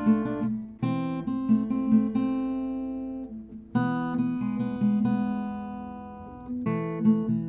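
Slow instrumental tune on a steel-string acoustic guitar, notes plucked one after another and chords left to ring and fade, with new chords struck about a second in, near four seconds and again near seven.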